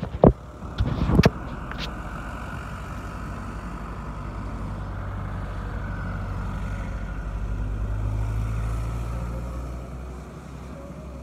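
A few sharp knocks in the first second or so, then an engine running steadily with a low hum that slowly grows louder to a peak about eight seconds in and fades away near the end.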